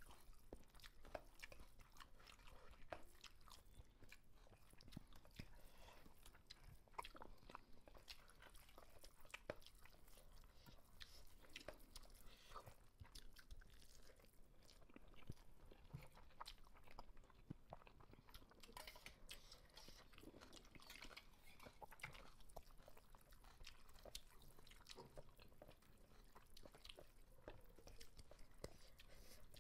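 Faint chewing of two people eating rice and chicken by hand, with scattered small clicks of fingers and food against steel plates.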